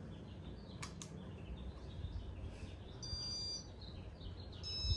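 Two short electronic beeps, about three seconds in and again near the end, from the Casablanca ceiling fan's electronic control as it is switched on to speed 2. There are two faint clicks about a second in, over a steady low hum.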